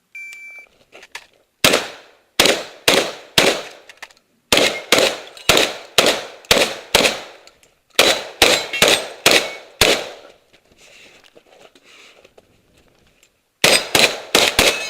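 A shot timer beeps once, then a 12-gauge shotgun fires rapid strings of shots at about two a second: four, then six, then five. After a pause of about three and a half seconds, four more shots come near the end.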